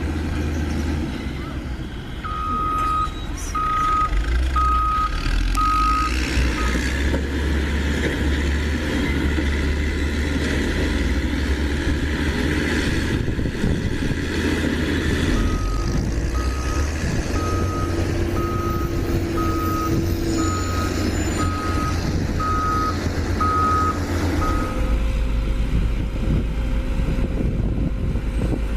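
A dump truck's reversing alarm beeping once a second in two runs, four beeps about two seconds in and about ten more from the middle, over the steady low running of a heavy engine.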